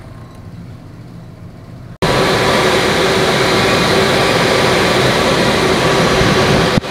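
A faint low hum, then about two seconds in a workshop dust collector comes in suddenly and runs steadily, a loud rushing air noise with a steady hum in it.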